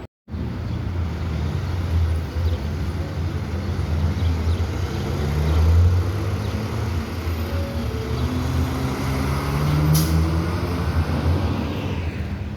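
R188 subway train running along the elevated track, its traction motors whining in several gliding pitches over the rumble of the wheels. A single sharp clank about ten seconds in.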